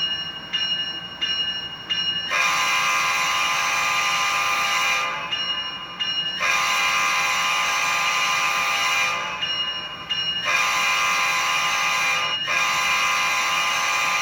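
Model locomotive's LokSound sound decoder playing a custom, auto-tuned multi-chime diesel horn through the model's small speaker. Four short ringing strokes come first, then four long horn blasts, the third a little shorter.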